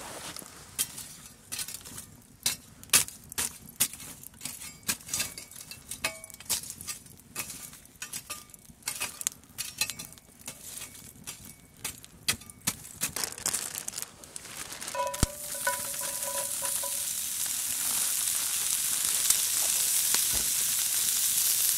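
Wood campfire crackling with sharp, irregular pops. About fourteen seconds in, sliced sausages start sizzling in a cast iron skillet over the coals, the hiss growing steadily louder.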